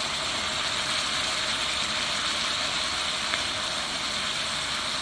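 Steady sizzle of a pan of fish stewing with onion and pepper as raw rice is poured in, with one faint tick a little past halfway.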